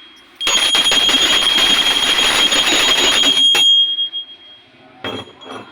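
Brass hand bell shaken rapidly for about three seconds, its clapper striking many times a second over a steady high ringing tone. The ringing stops abruptly, and the tone lingers for a moment as it dies away. A couple of faint knocks follow near the end.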